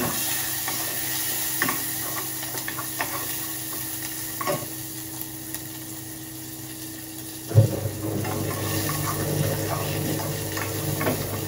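Chopped garlic and chilli frying in hot oil in a small pot, a steady sizzle with short clicks of a spoon stirring against the pot. A low steady hum joins in a little past halfway, just after the gas stove's knob is turned.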